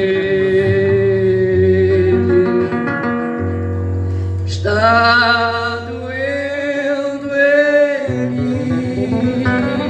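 Male voice singing with acoustic guitar accompaniment. About halfway through, the singer holds long notes with vibrato over the guitar.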